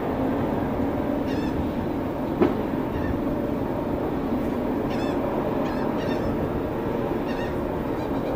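Steady low drone of a cruise ship's machinery heard from its open deck, with a single brief knock about two and a half seconds in and a few faint short high chirps.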